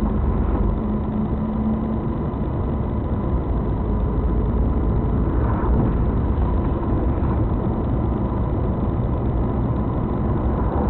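Steady low rumble of a vehicle driving, with engine and road noise picked up inside the cab by a dash camera. A faint steady tone sits above the rumble.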